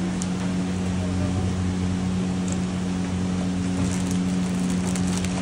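Electric motor of a kitchen machine running steadily with a constant low hum.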